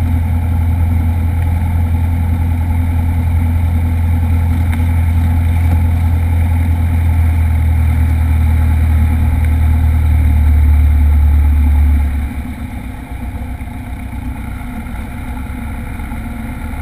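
Light single-engine airplane's piston engine and propeller running at taxi power, heard from inside the cockpit: a loud, steady low drone that drops away and gets quieter about twelve seconds in.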